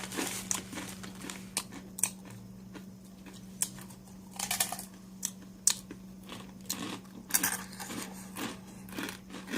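Crunching and chewing of uncooked rye instant noodles: irregular crisp crunches, some louder than others, over a steady low hum.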